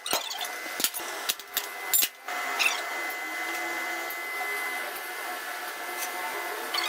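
A few sharp clicks, then from about two seconds in a power tool running steadily with a whine.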